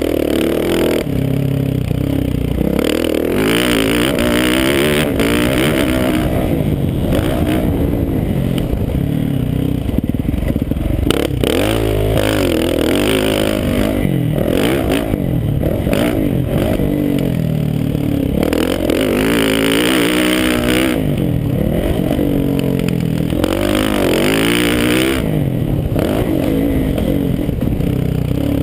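Motocross bike engine heard from a helmet camera at racing speed, its pitch climbing and dropping again and again as it accelerates and shifts around a dirt track. Several bursts of rushing noise from wind on the camera come and go over the engine.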